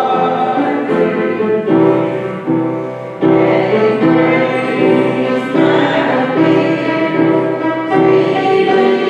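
A congregation singing a slow hymn together with piano accompaniment.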